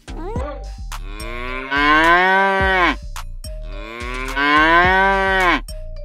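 Two long cow moos, each lasting about two seconds, over background music with a steady beat. A short cat meow comes right at the start.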